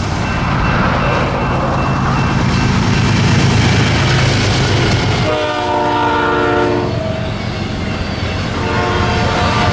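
Diesel freight locomotive running past with a heavy low rumble. About five seconds in, its Nathan K5HL five-chime air horn sounds a chord for about a second and a half, then blows again near the end.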